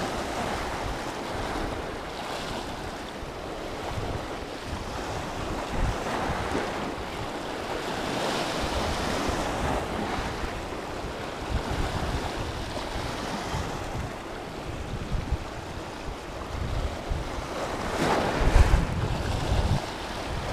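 Sea waves washing and breaking over shoreline rocks, with wind buffeting the microphone in gusts, strongest near the end.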